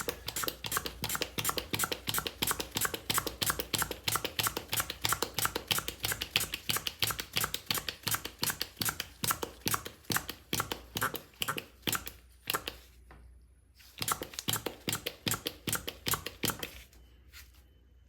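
Hand pump of a pressure tester being worked quickly, giving a fast, even run of clicks at about four or five strokes a second to pressurise the chainsaw's crankcase for a leak test. The clicking pauses briefly about two-thirds through, resumes for a few seconds, then stops.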